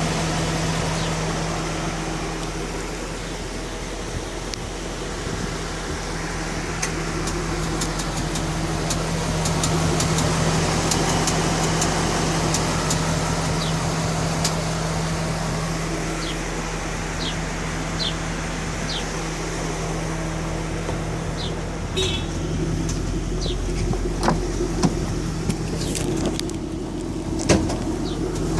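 2012 Ford Mustang GT's 5.0 Coyote V8 idling steadily, with scattered sharp ticks like a barbecue igniter clicking, several louder ones near the end: the intermittent 'typewriter tick', which the dealership traced to one cylinder and put down to inherent cylinder geometry failure.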